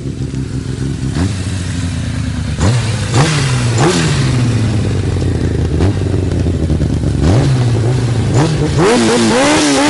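A vehicle engine running at a steady idle and revved repeatedly in short throttle blips, each rising in pitch and falling back, with the blips coming closer together near the end.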